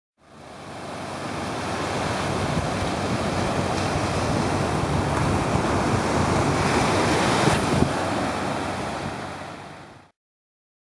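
Ocean surf washing onto a sandy beach with wind on the microphone, fading in at the start and out near the end, with two brief taps about three quarters of the way through.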